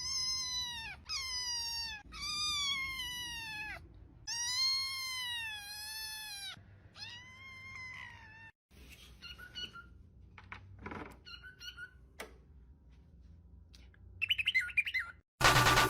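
A small pet animal gives about five high, drawn-out cries, each dropping in pitch at the end, one after another over the first six seconds or so. Faint clicks and rustling follow.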